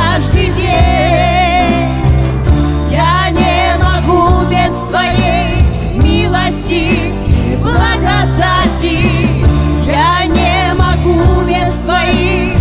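Live worship band playing a song: a man and a woman singing with vibrato over electric guitar and bass guitar, with a steady bass line underneath.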